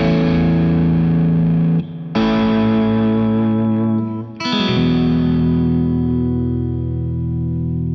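James Tyler Studio Elite HD electric guitar played through distortion: a chord ringing, a new chord struck about two seconds in, and a last one struck about halfway through and left to ring out.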